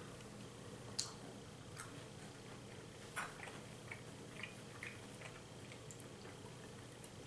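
Faint scattered clicks and light taps, roughly one a second, as chocolate-covered superworms are picked out of a small metal tin and set down on a ceramic plate, over a low steady room hum.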